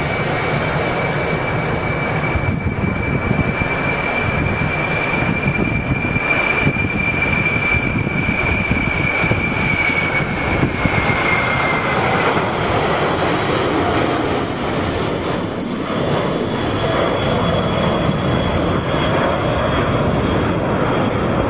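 Airliner engines running loud and steady at an airport, with a high whine that drops slightly in pitch about halfway through, and a fainter, higher whine in the second half.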